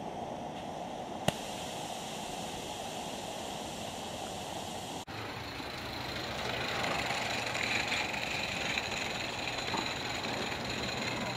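A gas-fired Gauge 1 live-steam Aster Krauss 0-4-0 running on garden track gives a steady hiss and mechanical running noise, with one sharp click about a second in. About halfway the sound cuts and comes back louder as the engine approaches and runs past.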